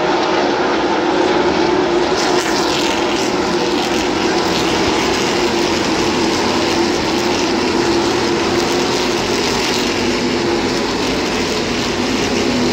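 NASCAR Xfinity Series stock cars' V8 engines running at race speed as the field laps the track, a loud, steady drone with a strong held pitch.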